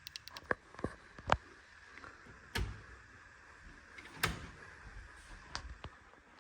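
Scattered sharp clicks and knocks, about eight of them, irregularly spaced, with a faint steady hiss behind.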